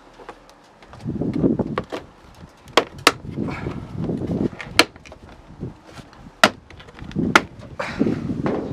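Sharp plastic clicks and snaps, about five of them, as a plastic fog-light trim bezel is worked and pried loose from a car's front bumper, with rustling handling noise in between.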